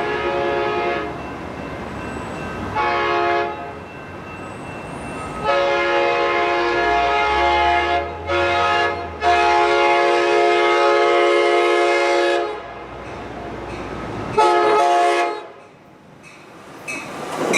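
Pacific Surfliner cab car's train horn sounding a series of blasts as the train passes. One blast ends about a second in, a short one follows around three seconds, then two long ones run from about five and a half to twelve seconds with brief breaks, and a short one comes near fifteen seconds. Between the blasts the train's running noise can be heard.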